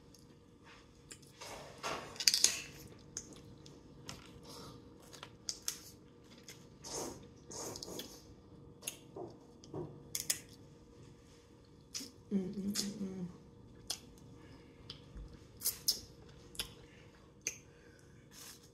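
Close-up eating sounds: crab shell snapping and clicking under the fingers, and lips smacking and sucking meat from the shell and fingertips, with a short hummed 'mm' about twelve seconds in.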